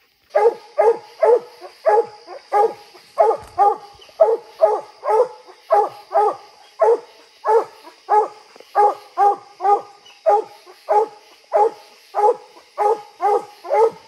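Redbone coonhound barking treed at the foot of a tree: a steady, unbroken chop of short barks, about two a second and often in pairs, the hound's signal that it has a raccoon up the tree.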